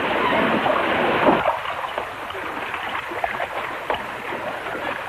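Water mill running: water splashing and rushing at the wheel, with a steady clatter of its gearing. The sound thins and softens about a second and a half in.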